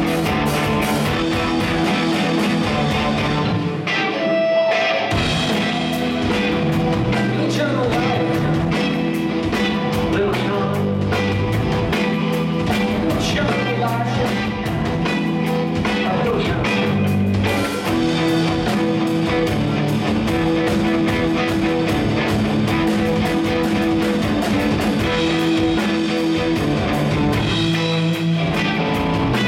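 Live rock band playing electric guitar, bass guitar and drums, with a short break in the drums and low end about four seconds in.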